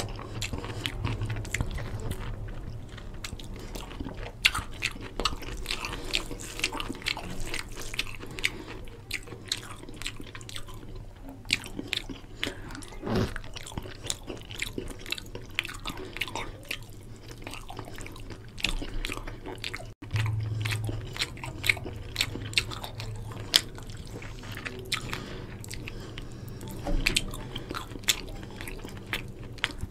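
Close-miked chewing and wet mouth clicks of a person eating rice and chicken curry, with fingers squishing and mixing rice in the curry on a steel plate. The sound is a dense, irregular run of short wet clicks.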